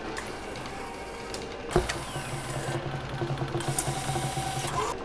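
Claw machine mechanism running: a sharp knock about two seconds in, then a steady motor hum as the claw moves, which stops near the end.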